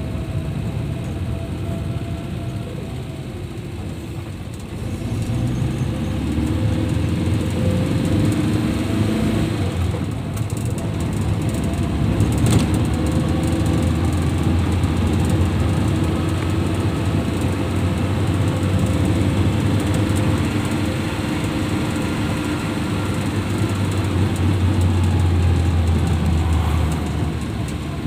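Car engine and road noise heard from inside the cabin while driving, the engine note rising and falling and getting louder about five seconds in. A single sharp click about twelve seconds in.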